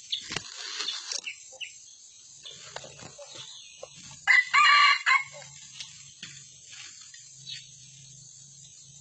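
Red junglefowl rooster crowing once, loud and about a second long, about four seconds in. Scattered rustling in dry leaf litter near the start.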